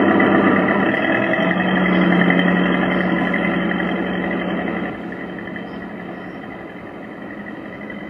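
Motorboat engine running at speed, a steady pitched drone. It is loud at first and drops to a quieter steady level about five seconds in.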